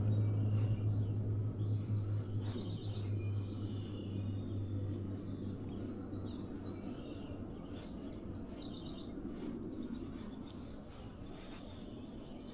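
Small birds chirping and trilling, with a low steady hum underneath that fades away about halfway through.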